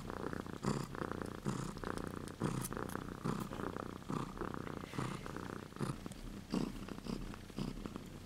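Siberian cat purring steadily and close, the rattle swelling and easing with each breath a little more than once a second, while kittens nurse against her.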